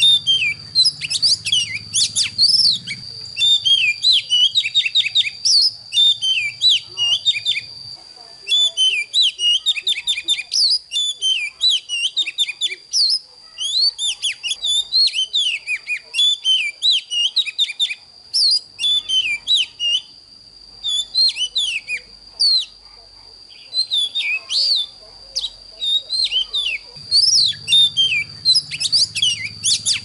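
Oriental magpie-robin singing a fast, varied run of whistles and chirps with short pauses, over a steady high-pitched whine. A low hum sits under the song for the first several seconds and returns near the end.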